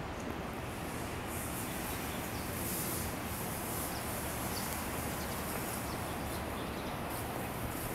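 Steady outdoor background noise, an even hiss and rumble with no distinct events.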